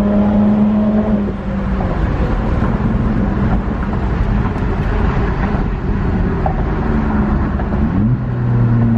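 Straight-piped exhaust of a 2010 Acura TL's V6, heard from inside the cabin while driving. A steady drone for about the first second gives way to a rougher, pitchless rumble, and the engine note climbs again near the end before settling.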